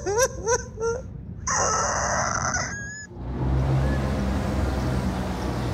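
A woman wailing and sobbing: several short, high, rising cries in the first second, then a longer strained cry. About three seconds in this gives way to the steady low rumble of street traffic.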